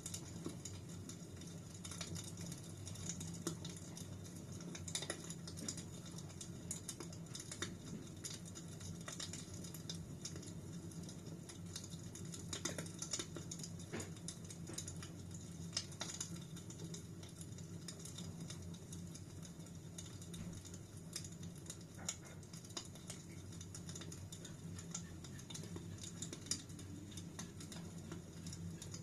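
Wood fire in a fireplace crackling: irregular sharp snaps and pops over a steady low sound of burning.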